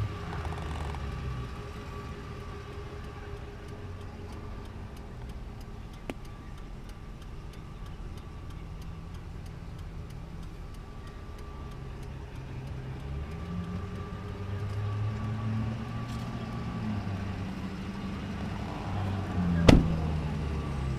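A low steady hum with faint regular ticking, then a pickup truck door shuts with a solid thump near the end.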